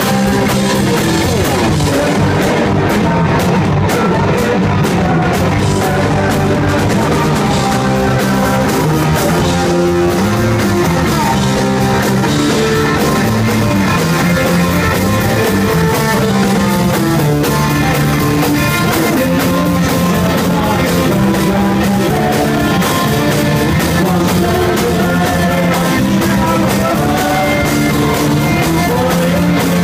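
Live punk rock band playing loudly: drum kit, electric bass and guitar, with singing.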